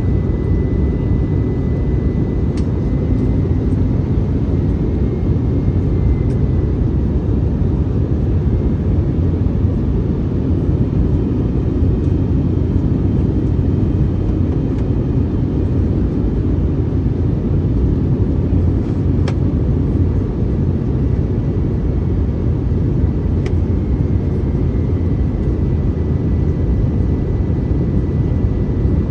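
Airbus A321neo cabin noise heard from a window seat: a steady, even rumble of engines and airflow with a faint steady high whine, and a few faint clicks.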